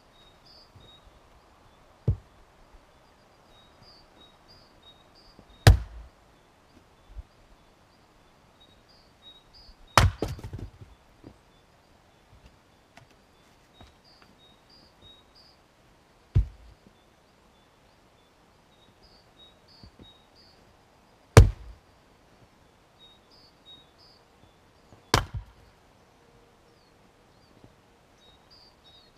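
Fiskars X25 splitting axe striking logs on a chopping block: six sharp blows a few seconds apart, one followed by a brief clatter of split pieces falling. A small bird calls faintly and repeatedly in the background.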